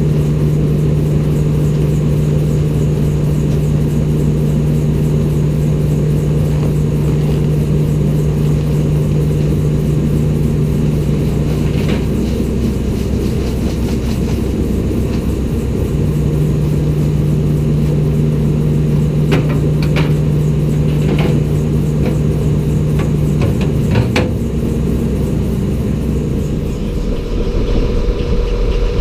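Engine running steadily, driving a feed grinder as a batch of feed is ground. Its main tone drops away about twelve seconds in and comes back a few seconds later, and a few sharp clicks or knocks come later on.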